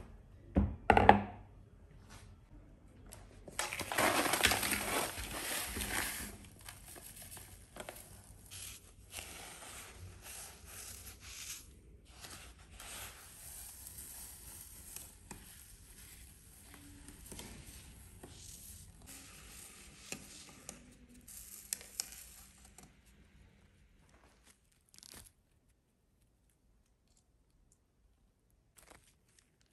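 Fine table salt poured from a cardboard box onto a paper model village as fake snow: a rush of grains for a couple of seconds, then lighter sprinkling on and off. A knock about a second in.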